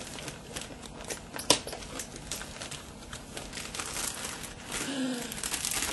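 Wrapping being crinkled and torn as a present is opened: a run of scattered crackles with one sharp snap about a second and a half in, growing denser and louder near the end.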